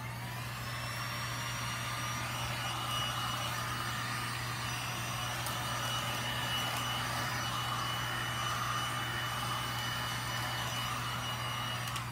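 Hand-held electric hot-air blower switched on, its fan spinning up with a short rising whine, then running steadily with a thin high whine as it warms poured resin on a canvas. It cuts off near the end.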